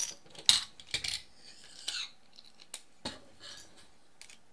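Sharp clicks and light clatter from a quadcopter frame and its small parts being handled. The loudest click comes about half a second in, and the sounds thin out after about three seconds.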